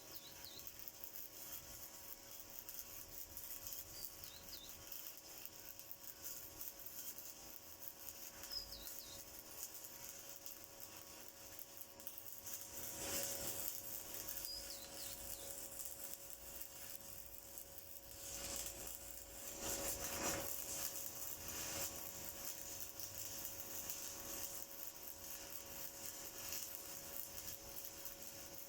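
Stick (shielded metal arc) welding with a 1/8-inch 7018 electrode on half-inch steel plate: the arc crackles and sizzles steadily, growing louder in a few stretches.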